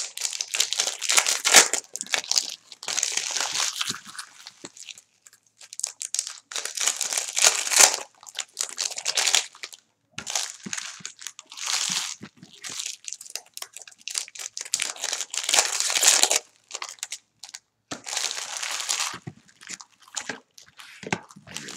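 Trading card pack wrappers being torn open and crinkled by hand, in irregular bursts of rustling with short pauses between.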